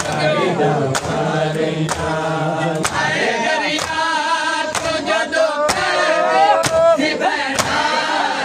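Crowd of men chanting a mourning noha in chorus, with open hands slapping bare chests in unison (matam) about once a second.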